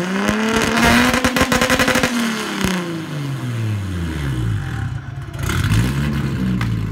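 Nissan Laurel's turbocharged RB20ET straight-six revved up against a freshly set rev limiter: it holds at the top with a rapid stuttering cut-out for over a second, then falls back toward idle. A second, shorter rev rises and falls near the end.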